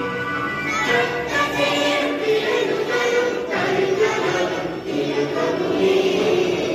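A large group of schoolchildren singing a prayer together as a choir of young voices.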